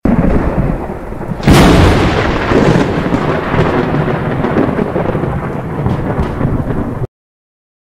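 Thunderstorm sound effect: rumbling thunder over rain, with a sharp thunderclap about one and a half seconds in, cutting off suddenly near the end.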